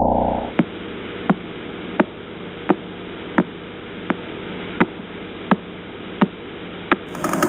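Pulsar radio signal turned into sound: a steady static hiss with a sharp click about every 0.7 seconds, one click for each turn of the spinning star. Near the end a faster, fuller pulsing sound cuts in.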